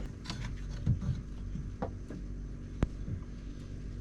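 Sailboat engine's bent metal exhaust pipe knocked and clicked against its fittings as it is test-fitted: a few scattered clunks with one sharp click near the end, over a steady low hum.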